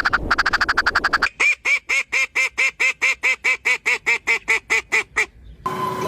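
Animal calls: a fast pulsing trill for about a second, then a quick, very even run of about twenty short pitched calls, some five a second. A long steady call begins near the end.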